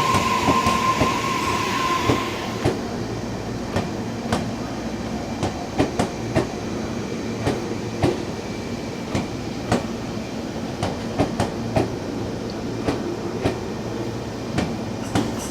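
Tobu 60000 series electric train pulling into the station: a steady high squeal over a hiss ends about two seconds in as the train comes to a stop. A low hum follows, broken by scattered sharp ticks.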